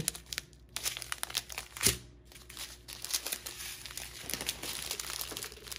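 Small clear plastic bags of diamond-painting drills crinkling and rustling as they are handled and shuffled across a table, with one sharper tap about two seconds in.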